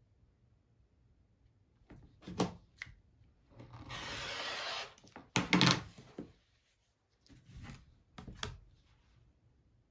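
A rotary cutter rolls along the edge of an acrylic quilting ruler and slices through layered cotton fabric on a cutting mat, one steady cut lasting about a second and a half midway through. Before and after it come knocks and clacks as the ruler is handled, lifted and set down on the mat; the loudest come just after the cut.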